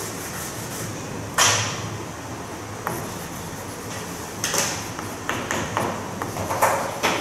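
Chalk writing on a chalkboard: sharp taps and short scratches of the chalk, a loud stroke about a second and a half in, then a quicker run of taps and scrapes through the second half.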